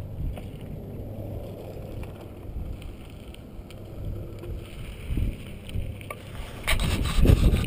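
Wind buffeting the microphone: an uneven low rumble that gusts louder near the end, with a few faint clicks.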